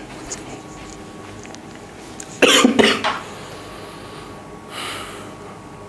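A man coughing, two harsh coughs in quick succession about two and a half seconds in, followed by a fainter breathy sound near the end.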